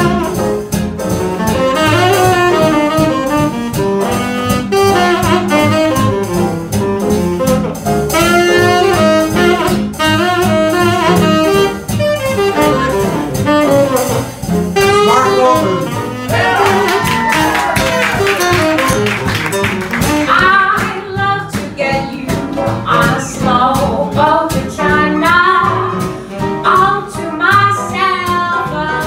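A big jazz band plays an instrumental break, with a saxophone soloing over the band and a bass line underneath.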